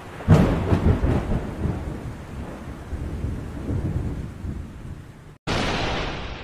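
Thunder: a sharp clap about a third of a second in, then a long rolling rumble that slowly fades, with a rain-like hiss underneath. Near the end the sound cuts out for a moment and a sudden loud new crash begins.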